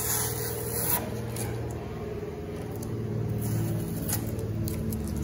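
Airbrush hissing in a short spray for about the first second, then a few faint brief hisses, over a steady low mechanical hum.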